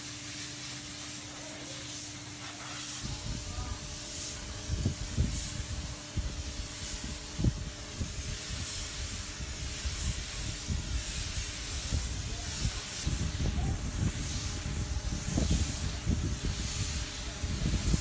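Compressed-air spray gun hissing steadily as it sprays finish onto a wooden canoe hull. From about three seconds in, a low, uneven rumble of buffeting on the microphone joins it.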